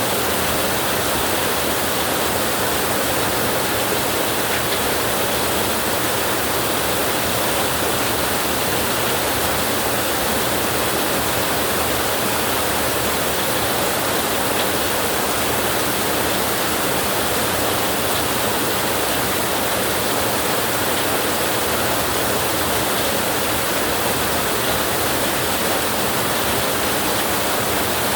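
Steady rain, an even unbroken hiss with no thunder.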